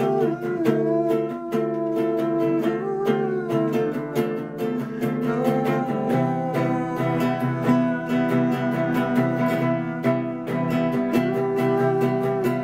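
Acoustic guitar strummed in a steady rhythm, chords ringing. In places a wordless vocal line glides over it.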